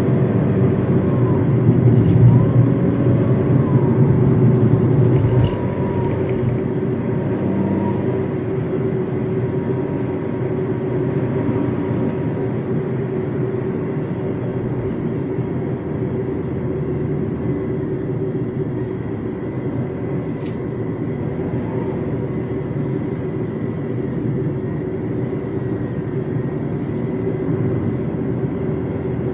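MG ZS driving, with a steady engine hum and tyre and road noise heard from inside the cabin. The rumble is louder for the first five seconds or so, then settles lower and even.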